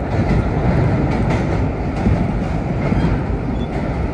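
1930s R1/9 subway cars running along the track: a steady heavy rumble of motors and wheels with clickety-clack from the rails.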